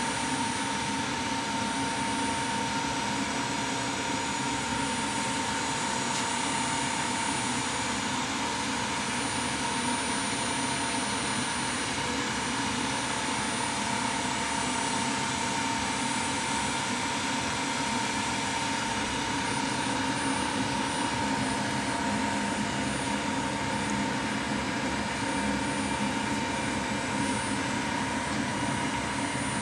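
Kellenberger 125/600U cylindrical grinder running with its feed slowed down: a steady mechanical drone from the wheel spindle and hydraulics, with a constant high whine.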